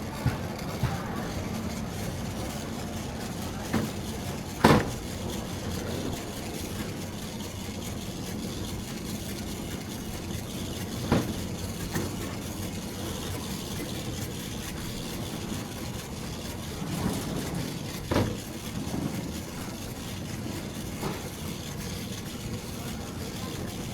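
Warehouse store background noise: a steady rumble, likely including the shopping cart rolling, broken by three sharp clanks about six or seven seconds apart, the first the loudest.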